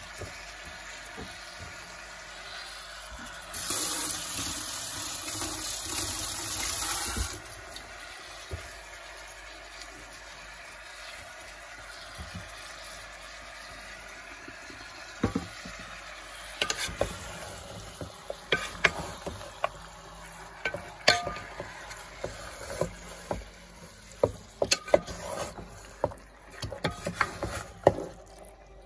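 A wooden spoon stirring raw chicken pieces and chopped onion in a rice cooker's non-stick inner pot, with irregular clacks and scrapes through the second half. Earlier, a steady hiss lasts about four seconds, starting and stopping abruptly.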